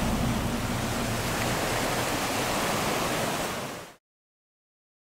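Sea surf washing onto a rocky shore: a steady rush of breaking waves that fades and stops about four seconds in.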